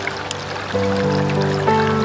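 Background music of soft held notes that change chord about three-quarters of a second in, over a steady rush of flowing stream water.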